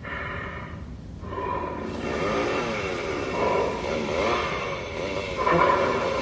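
Leatherface Halloween animatronic playing a recorded chainsaw revving sound effect, starting about a second in, its pitch rising and falling again and again.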